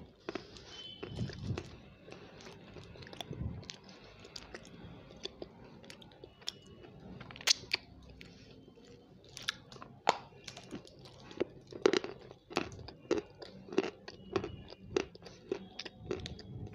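A crunchy white snack bitten and chewed right up against a microphone: irregular sharp crunches and crackles, with a few louder bites past the middle.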